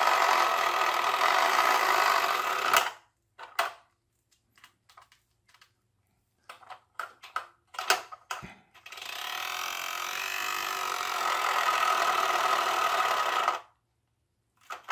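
Small electric motor of a flapper paddle boat's spinning-magnet drive running with a steady mechanical buzz, stopping about three seconds in. A few light plastic clicks and knocks follow as the parts are adjusted by hand. The motor starts up again about nine seconds in and runs until shortly before the end; it is struggling, and the maker thinks it is overheating.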